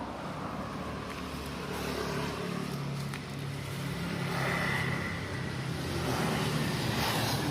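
Homemade chaff cutter (grass chopping machine) running on its drive engine: a steady mechanical hum, with a louder rushing surge about halfway through and another near the end.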